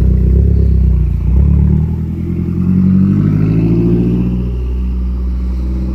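Mazdaspeed3's turbocharged four-cylinder with a loud exhaust accelerating away hard. The engine revs up, drops in pitch at a gear change about a second and a half in, then revs up again and runs on a little quieter as the car moves off.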